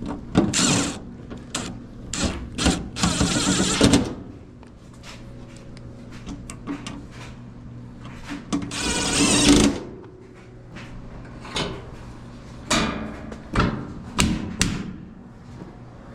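Clatter from handling the sheet-metal dryer cabinet and parts: scattered knocks and clicks, and two longer scraping noises, one a few seconds in and one about halfway, over a steady low hum.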